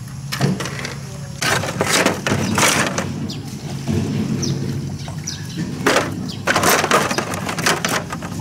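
Plastic scooter body panels clattering and knocking against each other and the wicker basket as they are handled and stacked, in several bursts of knocks and scrapes.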